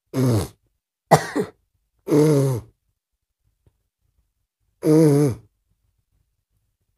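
A woman's voice making four short vocal sounds, each under a second, separated by pauses.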